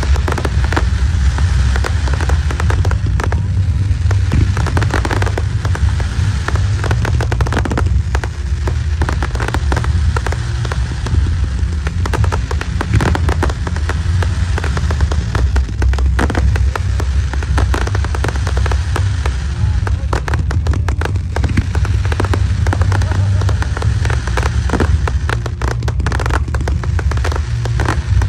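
Aerial fireworks display: a dense, continuous run of sharp bangs and crackling over a steady low rumble.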